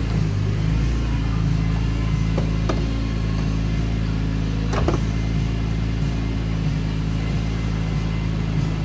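BMW E46 M3 convertible's power soft top folding down, its motor running steadily over the idle of the car's straight-six, with two sharp clicks from the top mechanism a few seconds in.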